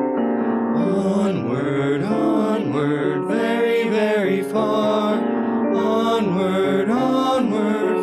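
Small mixed vocal group of three men and a woman singing a Christmas song together over piano accompaniment.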